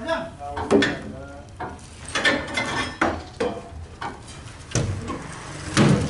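Heavy kapok logs thudding and knocking against each other as they are rolled off a truck onto a log pile: a series of hard wooden knocks, the heaviest two near the end.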